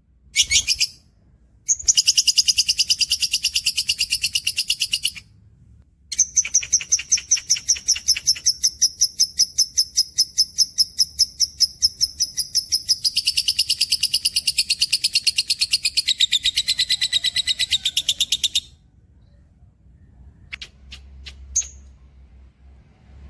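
A cage bird singing long, rapid trills of about eight notes a second. One phrase of about three seconds is followed by one of about twelve seconds whose pitch steps down partway through. A few short chirps come near the end.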